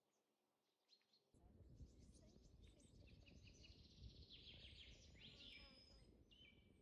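Faint chirping of small birds, with a low background rumble that comes in suddenly about a second in.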